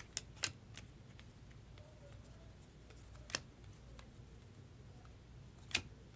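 Stiff chromium trading cards being handled and flipped through by hand, giving a few sharp snaps: three quick ones at the start, one in the middle and one near the end, over a low room hum.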